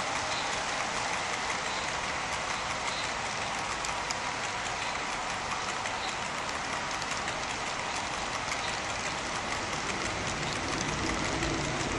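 HO-scale model train of loaded coal hopper cars rolling over the layout's track: a steady rolling noise of wheels on rail.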